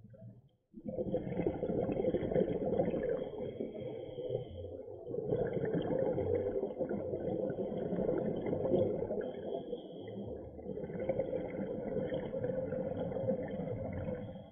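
Scuba regulator exhaust bubbles heard underwater: three long bubbling exhalations, starting about a second in, with short quiet breaths in between at about four and ten seconds in.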